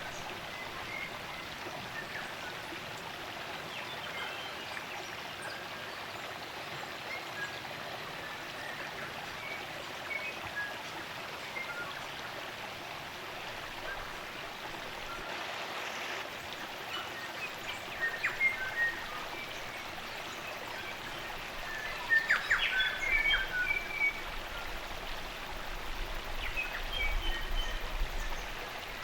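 Spring-fed stream running steadily, with scattered short chirps and calls of native forest songbirds over it and a louder flurry of quick bird notes about three-quarters of the way through.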